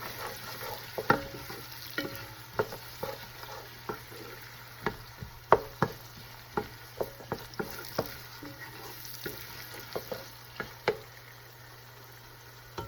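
Chopped onion and garlic sizzling in hot canola oil, with a utensil scraping and knocking against the pan at irregular intervals as they are stirred. The knocks thin out near the end.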